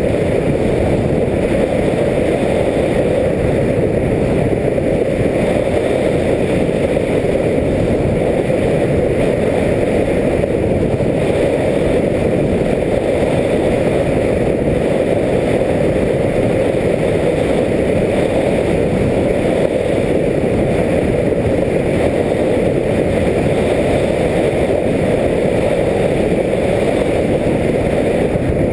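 Steady low rushing of wind and motor noise picked up by the onboard camera of an RC airplane in flight, unchanging throughout.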